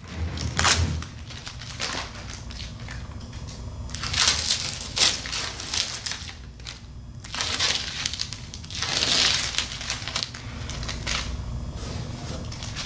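Blue painter's tape being peeled off a chair back's cane webbing and frame in several pulls.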